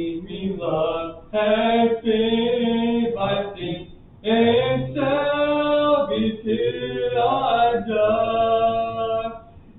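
A man's voice singing unaccompanied, holding long notes phrase by phrase, with short breaks a little over a second in and at about four seconds.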